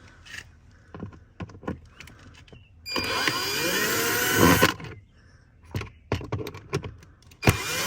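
A small handheld power driver spins twice, each time rising in pitch as it starts, about 2 s and then about 1 s long, as it runs the nuts off the cabin air filter cover. Light clicks and knocks of metal and plastic come before and between the runs.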